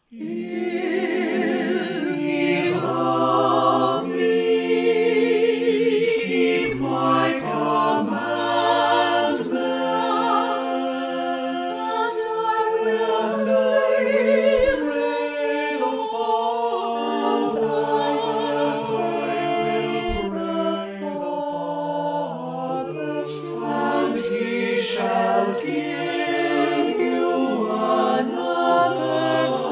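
Unaccompanied choir singing in several parts, held chords with vibrato that change every second or two; it starts suddenly out of silence.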